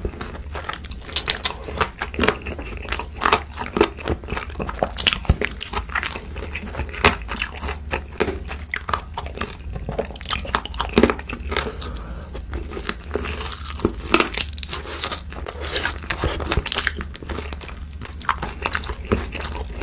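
Crunching bites and chewing of crispy fried chicken, an irregular run of crackles, over a low steady hum.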